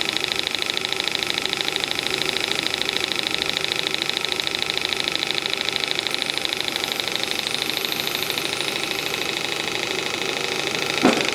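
Hand-built Graham TVR1A twin-cylinder model steam engine running steadily on steam from a hand-built boiler, a fast, even beat, on its first run on steam. A single brief thump near the end.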